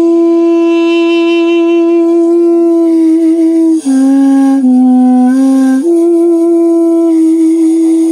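Armenian duduk, a double-reed woodwind, playing a slow plain phrase: a long held note, a brief dip through three lower notes about halfway through, then back to the long held note.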